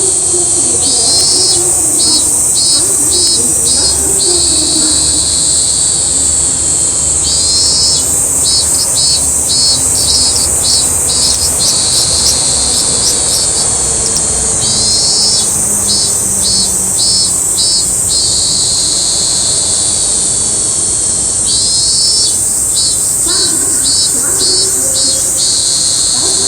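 Robust cicadas (minmin-zemi) calling: phrases of evenly repeated "meen-meen" pulses, each lasting a couple of seconds and coming back about every seven seconds, over a continuous high-pitched buzz.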